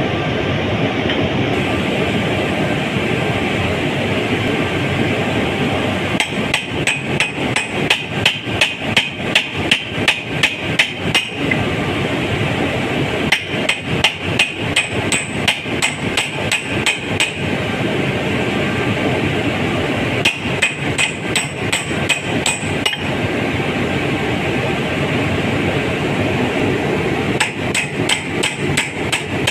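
Hammer blows on metal in four runs of rapid strikes, about four a second, each run lasting a few seconds, over a steady machinery drone. It is hammering at a rotary cement packer's impeller to knock out a jammed bolt.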